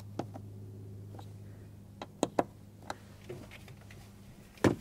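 Light clicks and ticks of a hand screwdriver snugging the T15 Torx screws of a mass airflow sensor into a plastic air cleaner housing, with a louder knock near the end. A faint steady low hum runs underneath.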